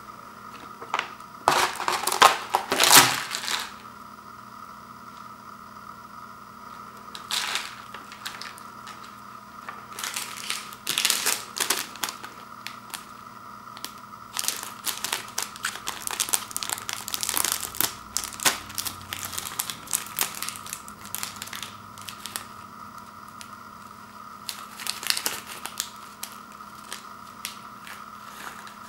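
Crinkling of thin plastic packets and wrappers from an instant yakisoba kit being handled and opened. It comes in irregular bursts and is loudest about two to three seconds in.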